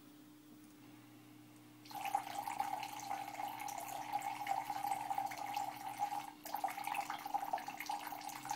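A thin stream of liquid pouring from a pump-fed copper pipe and splashing into a plastic tub. It starts about two seconds in, breaks off briefly near the end, then resumes. The pump timing is giving a continuous stream rather than separate drips.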